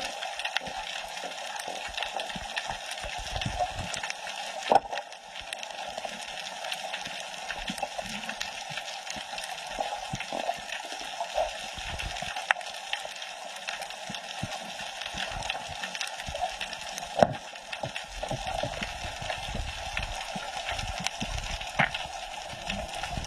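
Underwater sound heard through a camera's waterproof housing: a steady muffled water hiss with constant small clicks and crackles, and a few sharper knocks about 5, 17 and 22 seconds in.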